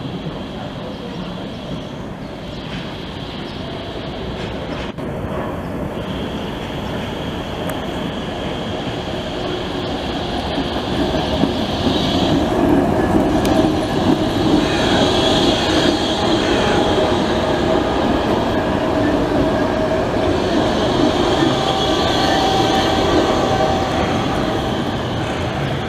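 Bombardier Flexity tram running past close by on curved track, growing louder as it nears and staying loud while it passes, with a high wheel squeal that comes and goes.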